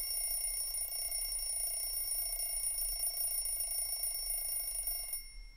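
A steady, high-pitched electronic ringing made of several held tones over a hiss, with no beat or pulse, cutting off abruptly about five seconds in.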